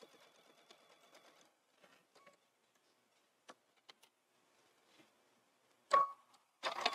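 Computerized sewing machine stitching a quarter-inch seam through quilted layers, its needle ticking rapidly, then stopping about a second and a half in. A few faint clicks follow during the pause, then a sharp, loud start just before six seconds, and near the end the machine runs again at speed with a steady motor whine.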